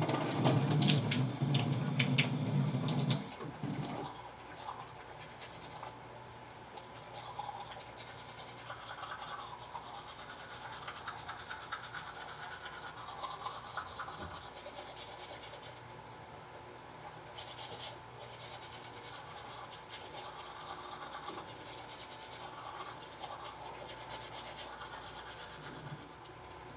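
A kitchen tap runs and splashes as water is scooped onto the face, stopping about three and a half seconds in. After that comes the quieter rubbing of a manual toothbrush scrubbing teeth.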